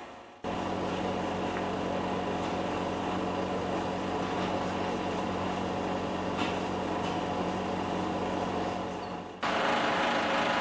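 Steady mechanical drone: a low, even hum with a hiss over it. Near the end it cuts off abruptly to a louder, noisier running sound.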